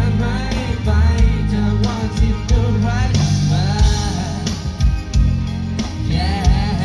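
Live band performance amplified through a concert sound system: a singer's voice over drums and heavy bass.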